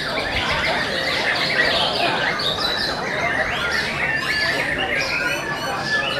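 White-rumped shamas (murai batu) singing, a dense run of overlapping whistles, trills and chattering phrases without a break.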